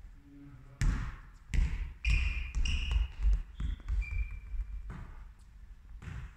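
Volleyballs bouncing and thudding on a sports-hall floor, about eight separate hits, with a few short squeaks in between.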